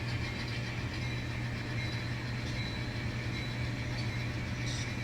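Steady, unchanging low engine hum: the idling diesel sound of a sound-equipped N scale model locomotive.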